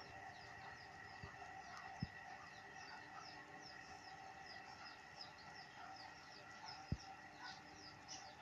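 Many small birds chirping together, a dense chatter of short high chirps over a faint steady hum. Two brief low thumps, about two seconds in and near the end.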